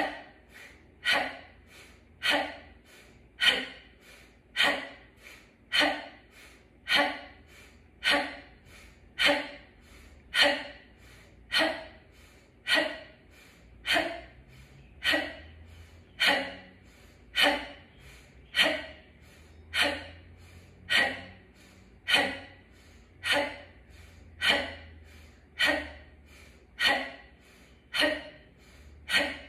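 A woman forcefully exhaling the chanted mantra "ha" in a steady rhythm, about once every 1.2 seconds, each a short, sharp, breathy syllable, as part of a Kundalini yoga kriya.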